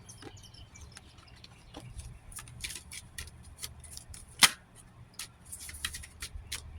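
Oracle cards being handled: a run of irregular light papery clicks and snaps as cards are shuffled and turned over, with one sharp, loud snap about halfway through, over a low steady hum.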